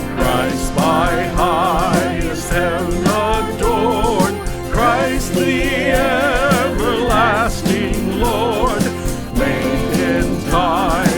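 Contemporary worship song with a band: a sung melody with vibrato over a sustained accompaniment and a steady drum beat.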